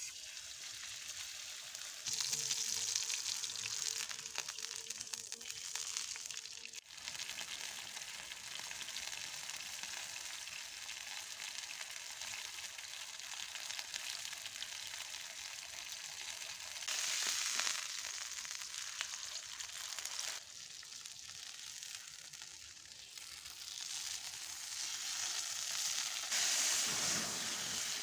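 Steak sizzling in a hot frying pan over a campfire. The sizzle is a steady hiss that swells louder in stretches, around a few seconds in, again past the middle, and near the end.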